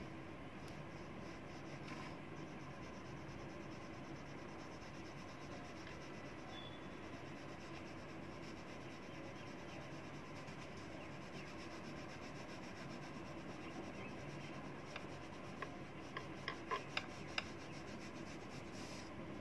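A crayon scribbling back and forth on paper: a faint, steady rubbing scratch. A few light clicks come near the end.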